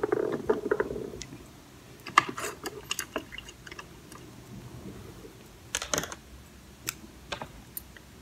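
Irregular light clicks and rustles of hands handling makeup, with lipstick tubes being uncapped. The loudest pair of clicks comes about six seconds in.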